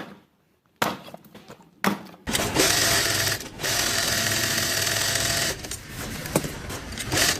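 A few sharp knocks, then a small motorised machine running steadily for about three seconds with one brief break, before dropping to a quieter, rougher running.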